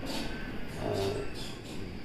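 Strong sandstorm wind gusting outside, with a steady low hum underneath.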